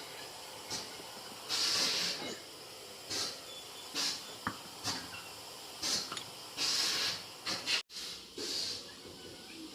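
Repeated short bursts of hissing air, each lasting up to about a second, coming irregularly every second or two.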